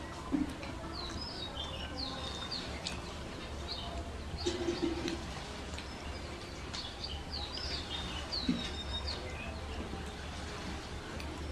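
Birds chirping over and over in short, quick calls over a steady low hum. Now and then there are the eating sounds of the meal: a few light clicks and soft thuds of forks and mouths.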